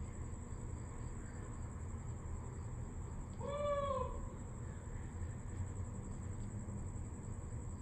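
One short animal call, its pitch rising then falling, a little past halfway, over a steady low rumble.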